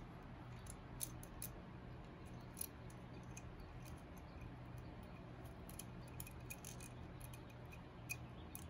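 Faint scattered clicks and light metal taps from a small hand tool working the intake manifold clamp screws on a Harley-Davidson Shovelhead, over a low steady hum.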